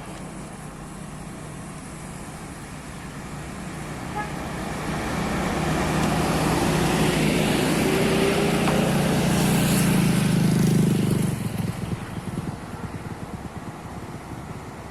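Heavy truck's diesel engine labouring up a climb as it passes, growing louder over several seconds with the pitch creeping up, then dropping off suddenly about eleven seconds in.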